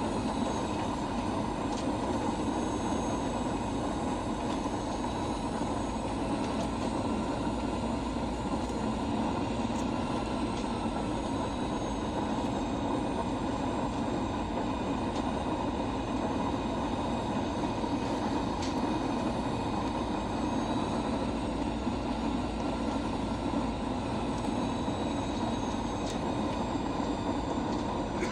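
Steady roar of engines and airflow heard inside an airliner's cabin during the descent to land, with faint high whining tones running through it and a few light clicks.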